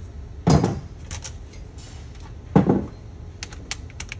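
Metal hand tools clanking as they are handled: two louder clunks about two seconds apart and a few light clicks.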